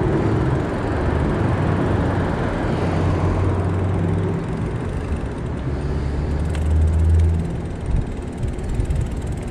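Road traffic alongside a bicycle: a motor vehicle's engine hum whose pitch shifts a few times before fading about seven seconds in, over a steady rush of traffic noise. Irregular low thumps follow near the end.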